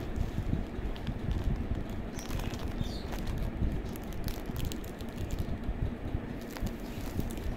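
Bubble wrap and a thin plastic bag crinkling and rustling in the hands, many small crackles, over a steady low rumble on the microphone.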